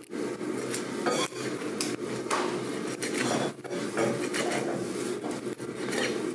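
A large kitchen knife slicing and scraping through a skate's wing on a plastic cutting board, with irregular short scrapes and knocks of the blade, over a steady low hum.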